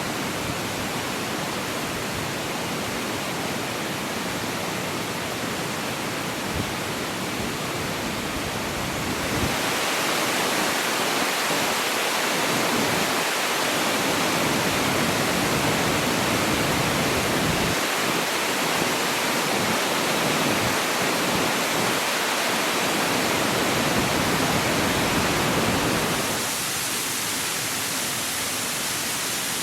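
Mountain waterfall, water falling and splashing in a steady rush. It gets louder and brighter about a third of the way in and drops back a few seconds before the end.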